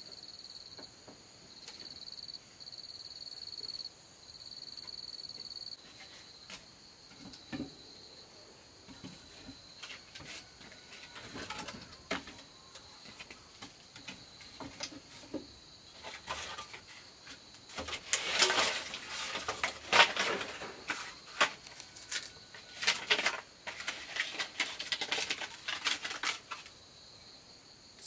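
Dry split bamboo and firewood sticks clattering and knocking together as they are handled and stacked, sparse at first and densest and loudest in the second half. Insects chirr in steady pulses during the first few seconds.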